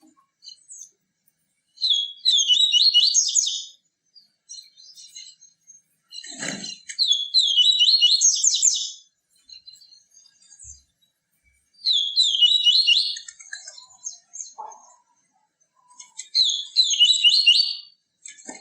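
Papa-capim (yellow-bellied seedeater) singing its 'tui tui viviti' song: four high-pitched phrases of rapid, repeated twittering notes, each about two seconds long, with pauses between them.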